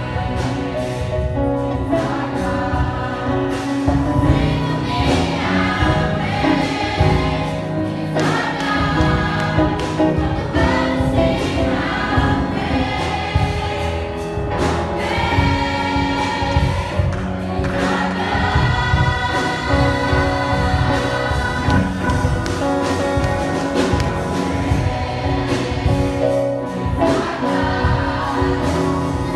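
Choir singing a gospel song over instrumental backing with a steady beat.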